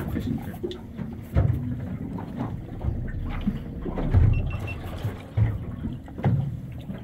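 Wind buffeting the microphone in irregular gusts, with water lapping at a small boat drifting with its outboard motor dead.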